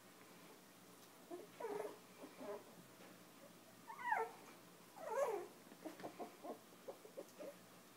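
Five-week-old Chinese Crested puppies whimpering and squealing: a few high, wavering cries, the strongest about four and five seconds in, then a run of short quick yips near the end.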